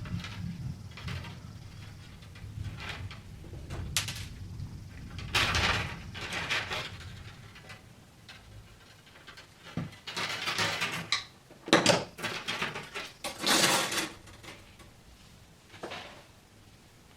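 Irregular handling noises: knocks, clicks and short bursts of scraping or rubbing, with the sharpest clicks about two thirds of the way through. A low hum fades out in the first few seconds.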